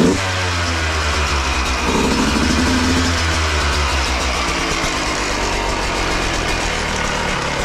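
Rebuilt Yamaha YZ125 two-stroke single, bored out to 144 cc and breathing through an FMF exhaust, running at idle, with a quick blip of the throttle right at the start and a smaller rise in revs about two seconds in.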